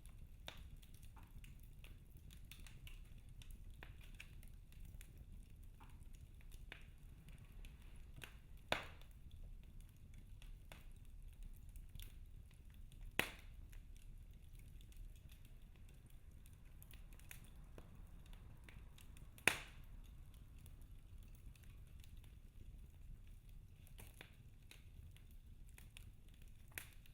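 Wood fire in a fireplace crackling softly, with many small scattered clicks and three sharper pops over a low steady rumble.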